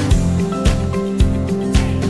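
Background music with a steady beat, about two beats a second, over held pitched notes.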